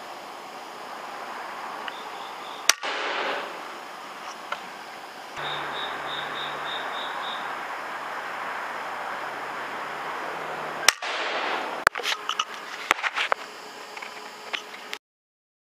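Two air rifle shots, sharp cracks about eight seconds apart, each with a short smear of ringing after it. A quick cluster of smaller clicks and taps follows the second shot.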